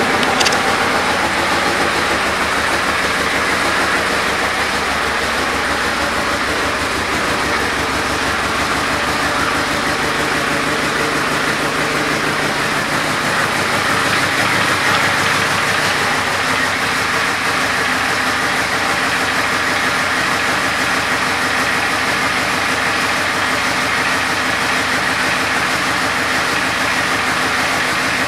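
2011 Yamaha Royal Star Venture's 1,294 cc V4 engine idling steadily, freshly started.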